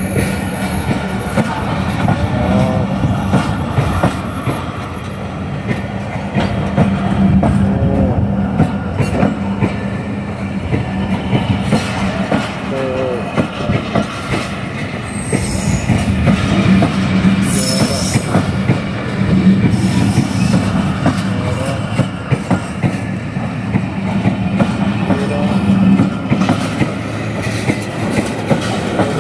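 Pakistan Railways passenger coaches rolling past along a platform: a steady rumble and clatter of wheels over the rail joints, with short high-pitched wheel squeals about halfway through.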